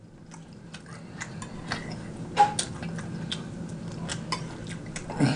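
Metal fork clicking and scraping against a plate while cutting into food: sharp taps a few times a second, the loudest about two and a half seconds in, over a faint steady low hum.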